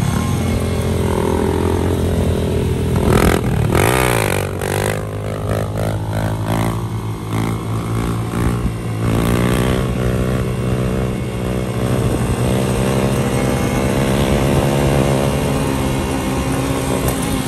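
Motorcycle engine running steadily, revved once about three seconds in with a quick rise and fall in pitch, then running on with smaller swings in speed.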